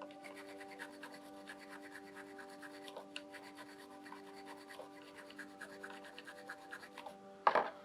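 A small cleaning brush scrubbing the revolver's metal in quick short strokes, a soft scratchy rubbing, with a louder clack near the end as the gun or a tool is set down. Soft background music with held notes runs underneath.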